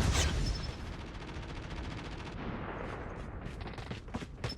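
Video game automatic gunfire: a rapid, even string of shots, loudest at the start, giving way to a few scattered single shots in the second half.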